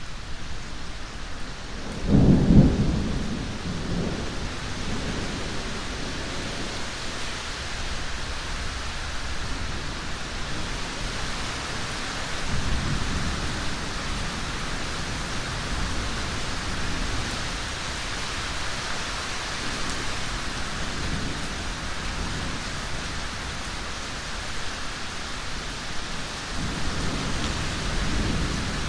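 Steady heavy rain with rolling thunder: a loud low rumble about two seconds in that fades over a few seconds, then fainter rumbles about halfway through and near the end.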